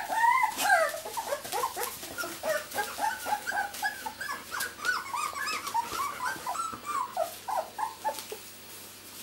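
Two-week-old miniature labradoodle puppies whimpering and squeaking: a rapid string of short, high rising-and-falling cries, about three a second, growing fainter near the end.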